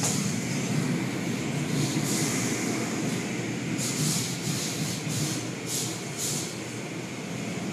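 Automatic car wash tunnel equipment running: a steady mechanical rumble with repeated short bursts of hiss.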